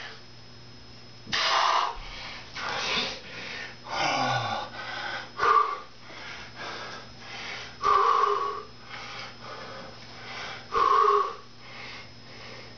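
A man breathing hard after a set of push-ups: loud, heavy exhalations and gasps about every one to three seconds, some of them half-voiced like a groan.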